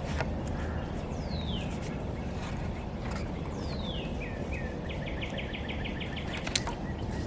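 Steady rush of strong wind, with a songbird calling over it: two high whistles slurring downward, then a rapid even trill of about ten notes a second. A single sharp snap comes about six and a half seconds in.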